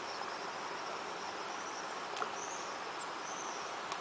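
Outdoor ambience of insects chirring steadily, with a few short high-pitched arching notes and two faint clicks.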